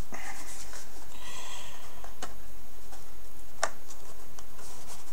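Cardboard phone box being worked open by hand: rustling and scraping of cardboard with a few sharp clicks, the loudest about three and a half seconds in.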